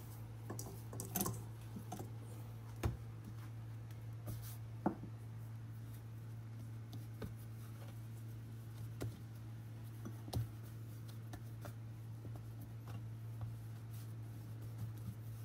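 Scattered light clicks and knocks of kitchen handling, over a steady low hum.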